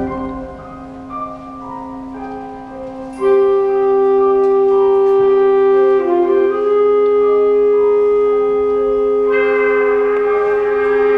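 Concert band of woodwinds and brass playing slow, long held chords. It is softer at first, comes in loud about three seconds in, and swells again near the end.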